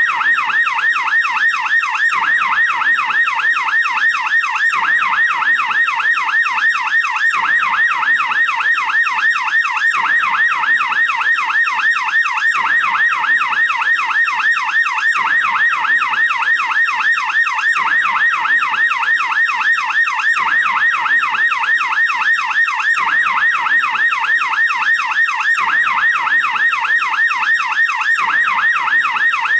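American police car siren in yelp mode, its wailing tone sweeping quickly up and down about three to four times a second, continuous and steady in loudness.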